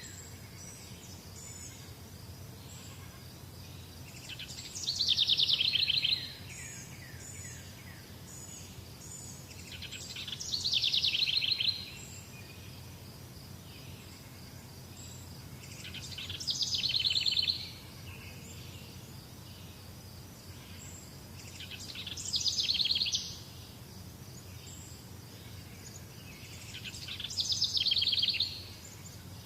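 A songbird repeating the same short song about every five to six seconds, five times: each song is a quick run of high notes lasting about a second and a half. Underneath runs a steady low background noise with faint high insect-like tones.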